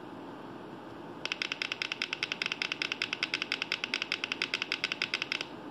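Simulated piezo buzzer in a Tinkercad Arduino circuit, heard from the computer: a rapid beeping tone pulsing about nine times a second that starts about a second in and stops abruptly after about four seconds. It sounds because the correct password has been entered on the keypad.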